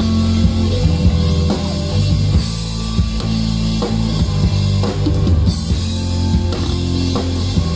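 Live rock band playing an instrumental passage without vocals: drum kit keeping a steady beat under electric bass and electric guitars.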